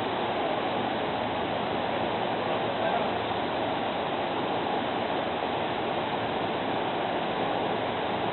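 Steady rushing running noise of a JR Central 313 series electric train under way.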